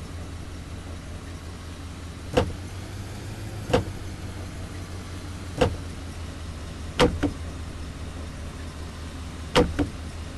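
A Range Rover's engine runs with a steady low hum. Five sharp knocks come at uneven intervals over it, and the last two are each followed quickly by a second, lighter knock.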